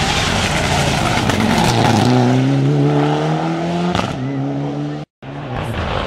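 Mitsubishi Lancer Evolution rally car's turbocharged four-cylinder engine accelerating hard towards the camera. The engine note climbs through a gear, breaks for a quick upshift about four seconds in, and climbs again before the sound cuts out abruptly for a moment.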